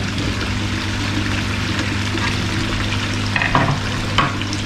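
Water pouring steadily from a wall spout into a koi pond, over a steady low electric hum from the pond's pump equipment. A couple of brief rustles come near the end.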